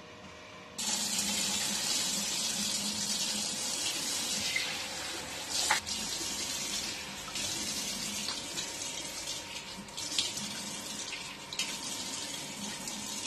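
Bathroom mixer tap turned on about a second in, water running into the washbasin, with uneven splashing as hands scoop the stream to rinse the face.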